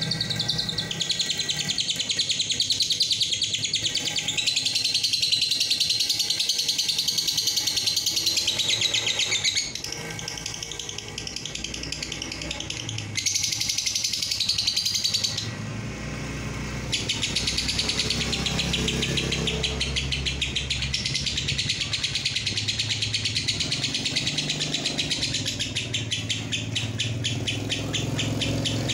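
Fischer's lovebird giving its long, rapid chattering song (ngekek), a fast unbroken run of high chirps. It weakens about ten seconds in and breaks off briefly near sixteen seconds before running on. A low rumble sits underneath in the second half.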